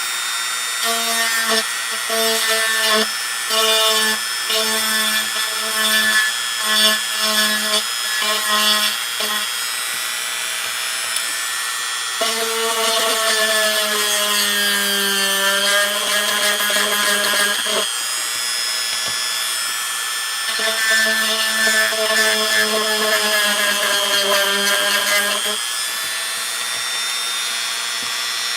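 Small electric craft drill boring holes through scrapbook paper and chipboard. The motor runs in quick repeated pulses for several seconds, then in one longer run whose pitch sags as the bit bites, then in pulses again.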